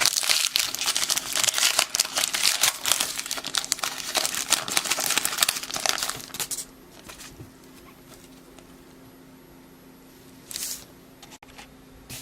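Baseball card pack wrapper being torn open and crinkled by hand for about six seconds, then stopping, with one brief rustle near the end.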